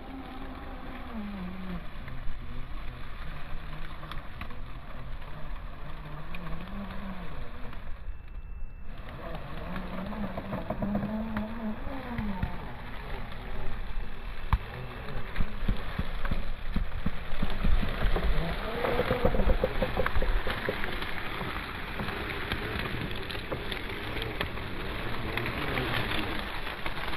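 Electric drive motor and gearbox of an Axial SCX10 II RC rock crawler whining, its pitch rising and falling with the throttle. Crackling of dry grass and brush under the tyres grows busier in the second half.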